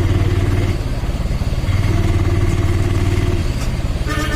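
Auto-rickshaw's small engine running under way, heard from inside the cab, a steady low chugging that eases off for about a second shortly after the start. A brief steady higher tone comes near the end.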